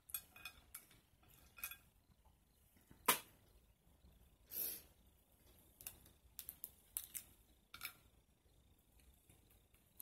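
Boiled crawfish shells cracking and crackling as they are peeled by hand: scattered sharp snaps and clicks, the loudest a single snap about three seconds in, with a short rustle soon after.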